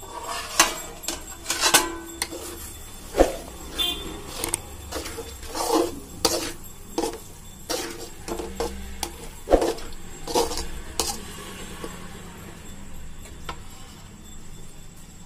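A perforated steel ladle clinking and scraping against a metal kadai as cooked noodles are stirred: irregular sharp clinks, thinning out over the last few seconds.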